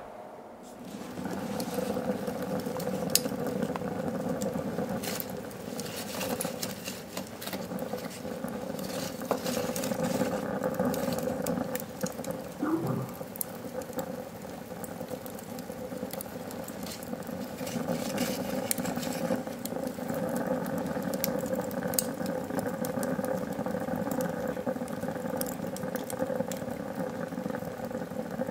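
Wood fire burning in a rocket mass heater's firebox, sticks standing upright in the feed tube: a steady draft sound with many scattered sharp crackles.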